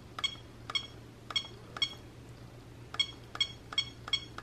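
A SimpliSafe second-generation alarm keypad beeping as its buttons are pressed to scroll through the sensor-name list. There are about eight short, high-pitched beeps at uneven spacing, one per press.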